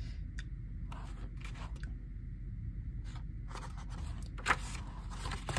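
Paper pages of a photobook being turned by hand: soft rustles and page flips, the sharpest about three-quarters of the way through, over a low steady hum.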